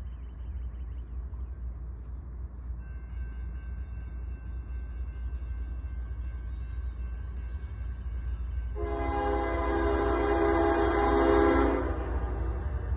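Freight locomotive horn sounding one loud blast of several notes, about three seconds long and beginning about nine seconds in. A steady low rumble of the approaching train runs underneath, with faint steady tones from about three seconds in.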